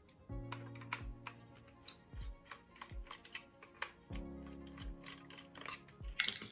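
Background music with held chords and a slow beat, over a run of small, quick clicks and taps as a small Phillips screwdriver works the tiny screws out of a Hornby APT model coach's plastic body.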